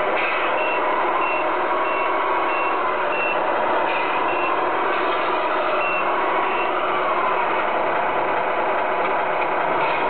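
Electronic reversing beeper on a 1/14 Tamiya Scania R620 RC truck, beeping about twice a second, pausing and starting again, over the steady whine of the truck's electric drive, which slides up and down in pitch.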